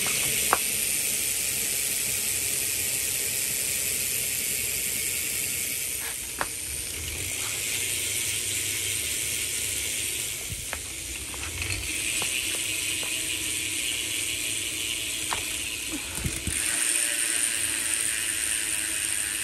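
BMX rear hub freewheeling as the wheel spins: the Profile Mini cassette hub's ratchet clicking so fast it blends into a steady buzz, with a few separate ticks.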